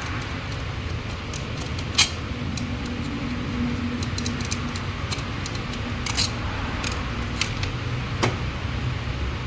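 A few light metallic clicks and clinks of small metal objects being handled, over a steady low hum.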